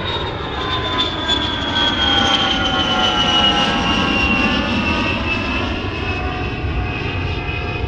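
Airplane engine whine over a steady rumble, the whine sliding slowly down in pitch.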